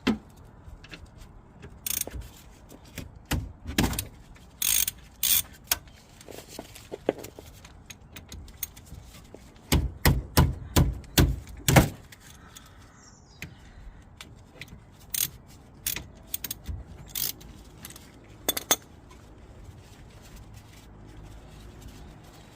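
Sharp metallic clicks and clinks of a socket wrench on a car's brake caliper bolts as they are broken loose. About ten seconds in there is a quick run of heavier knocks.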